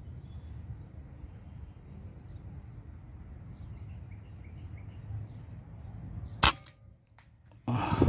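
A steady low outdoor rumble with faint bird chirps, then, about six and a half seconds in, the single sharp crack of an air rifle firing a 13-grain slug. After a brief drop to near silence, a louder, muffled thump comes near the end.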